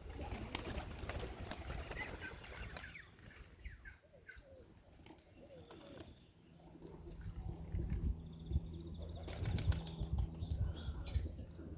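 Highflyer pigeons' wings flapping as the flock comes down to land. A steady low hum comes in about halfway, with a few sharp knocks near the end.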